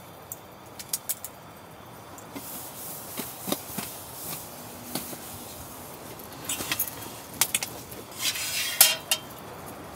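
Close-up handling of folding metal camp gear. First a few sharp metal clinks as a small metal stand is folded, then a paper towel rubbing across a tabletop with light knocks. Near the end the metal legs of a small folding camp table click and clatter as it is folded flat.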